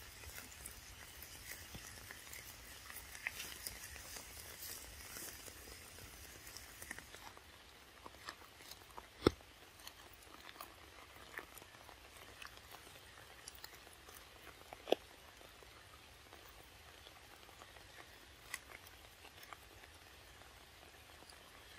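Faint sounds of a young macaque eating a mango: scattered small clicks and wet smacks, with two sharper clicks about nine and fifteen seconds in.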